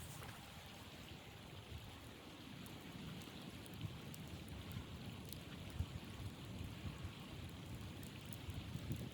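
Blizzard wind blowing: a low rumble that swells and eases in gusts over a steady hiss, with a few faint ticks.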